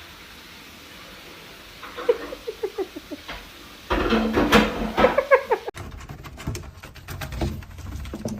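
A pet animal making a quick run of short pitched calls, starting about two seconds in and getting louder near the middle. Partway through, the sound cuts abruptly to a different scene with scattered clicks.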